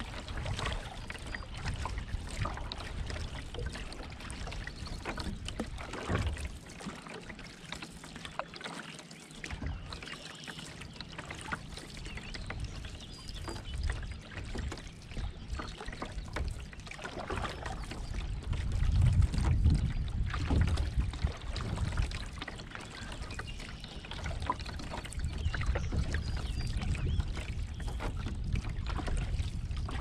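Canoe paddle strokes in the river, water splashing and trickling off the blade and lapping at the hull, under a low rumble that is loudest about two-thirds of the way through. Faint songbirds chirp now and then.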